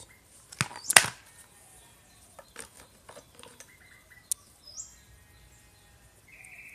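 Plastic recoil starter housings of a type 58 chainsaw being handled: two sharp knocks about half a second and a second in, then lighter clicks and taps.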